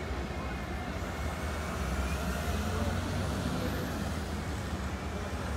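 Column of heavy military trucks and armoured vehicles driving along the street, their engines running with a steady low sound. A faint high whine rises and falls around the middle.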